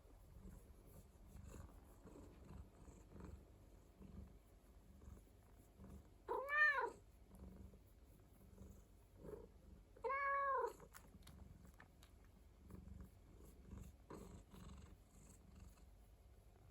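Domestic cat purring softly, with two meows, each rising then falling in pitch, about six and ten seconds in.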